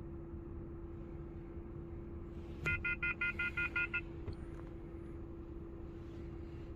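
Car engine idling with a steady hum. About two and a half seconds in, a quick run of about eight short electronic beeps sounds over it for just over a second.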